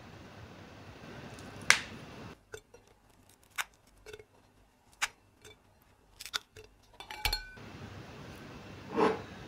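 Clinks and knocks of kitchenware as green chillies and a boiled tomato are picked off a steel plate and dropped into a plastic jar. There are a series of short, sharp clicks, the loudest just under two seconds in, and a duller thud near the end.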